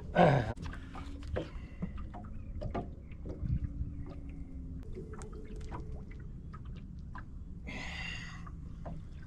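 Scattered knocks and clicks of handling in a small fishing boat, with a short splash of water about eight seconds in.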